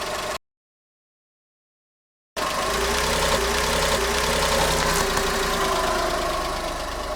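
Car engine idling with a steady hum and low rumble. The sound drops out completely for about two seconds shortly after the start, then the idle resumes.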